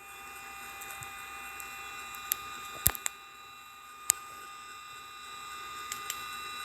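Radio receiver giving out static: a steady hiss with several fixed whistling tones held throughout, broken by sharp crackling clicks every second or so at irregular moments.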